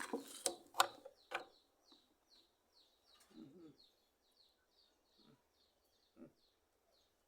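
A few sharp knocks, then a small bird chirping over and over in short, high, falling notes, about three a second.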